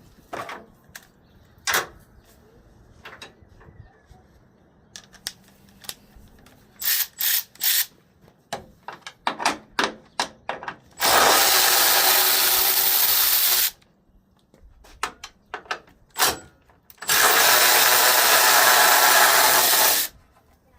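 Power drill running in two steady spells of about three seconds each, backing out two fasteners, with scattered clicks and clinks of the tool and metal parts being handled between them.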